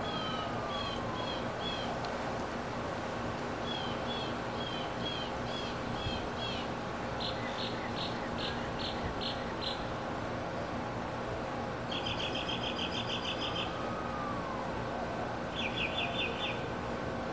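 Songbirds singing: several phrases of repeated short, high, downslurred whistles, then rapid series of notes and fast trills. A fainter, lower slurred call comes twice, once near the start and once near the end.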